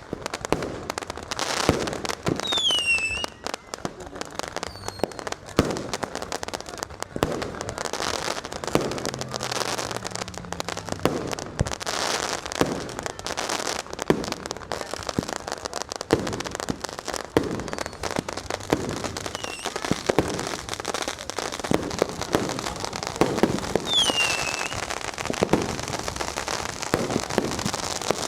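Fireworks and firecrackers going off without pause: a dense crackle of bangs with sharper louder reports scattered through it. A falling whistle from a whistling firework sounds about two seconds in and again near the end.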